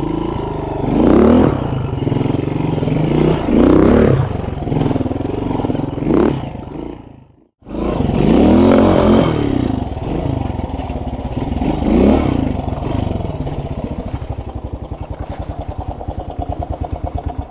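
Honda RTL trials bike's four-stroke single-cylinder engine being blipped again and again, the revs rising and falling as it is ridden. It cuts out briefly about halfway through, and near the end it settles into a slow, even thumping at low revs.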